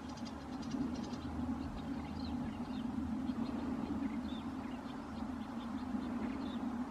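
House sparrows chirping: many short chirps scattered throughout, over a steady low hum.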